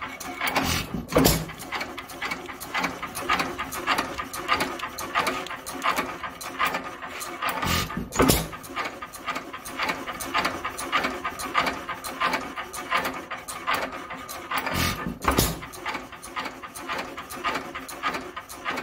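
International Harvester hit-and-miss stationary engine running, with a steady quick clicking of its valve gear and mechanism as the flywheels coast. A few heavier firing strokes come about a second in, around eight seconds in and twice near fifteen seconds: the governor lets it fire only when its speed drops.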